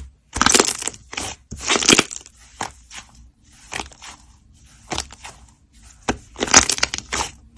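Slime being squished and squeezed: a string of short squishes about once a second, loudest in the first two seconds and again near the end.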